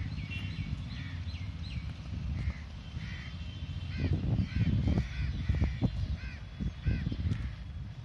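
Crows cawing, a string of short calls that come thicker about halfway through, over a low rumble of wind on the microphone.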